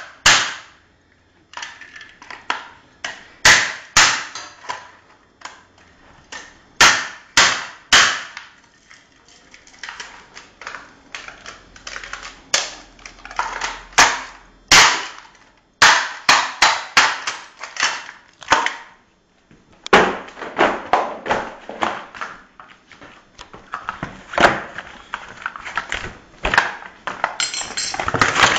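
Hammer blows smashing a plastic ADSL modem on a hard floor: a long run of sharp, irregular cracks and knocks, sometimes several a second, as the casing breaks apart. In the last third the strikes come smaller and quicker.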